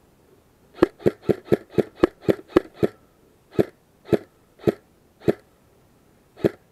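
Airsoft rifle firing single shots: a quick string of about nine shots in two seconds, then four slower shots about half a second apart and one more near the end.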